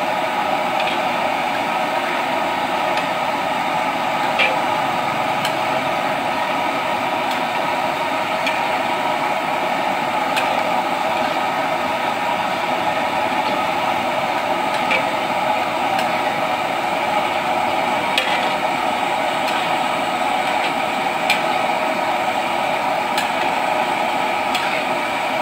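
Thin potato slices deep-frying in hot oil in a wok: a steady sizzle with scattered sharp pops every few seconds.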